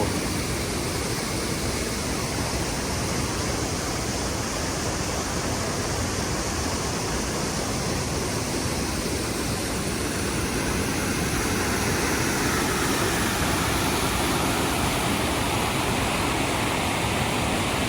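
Mountain creek water rushing over rocks in a steady, full roar, growing a little louder about two-thirds of the way through.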